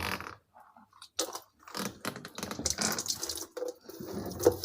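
Water splashing and trickling in irregular bursts as a washing-machine part is scrubbed clean.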